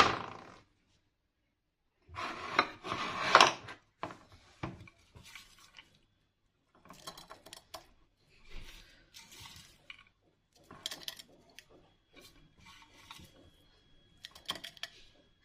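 Garlic being prepared by hand in the kitchen: irregular rubbing and scraping with light knocks and clinks, the loudest stretch about two seconds in.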